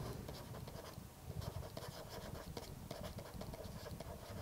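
Faint scratching and light tapping of a stylus writing on a tablet.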